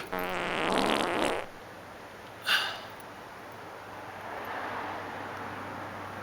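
A fart noise: one buzzing blast lasting about a second and a half. A short hiss follows about two and a half seconds in, then a faint low hum.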